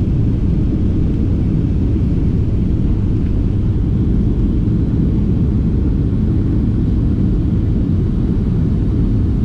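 Airliner jet engines at takeoff power heard from inside the cabin: a steady, loud, low rumble as the plane lifts off the runway and climbs away.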